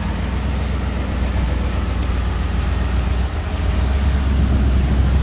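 Off-road 4x4's engine running with a low, steady note, getting louder about three and a half seconds in.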